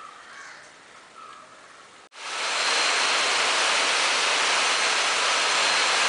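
Faint bird calls over quiet outdoor background, then from about two seconds in heavy rain pouring down, a loud, steady hiss.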